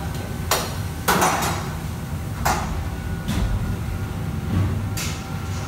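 Metal cookware clanking at a wok station: about five sharp, irregularly spaced knocks with a brief metallic ring, over the steady low rumble of the kitchen's burners and extractor hood.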